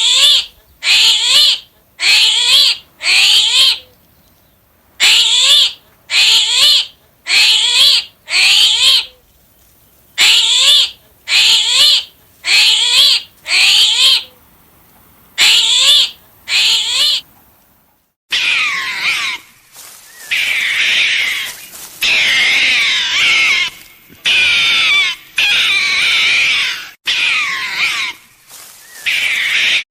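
Animal calls: a string of short, high cries that rise in pitch, coming in quick groups of two to four. About 18 seconds in they give way to a denser run of overlapping calls.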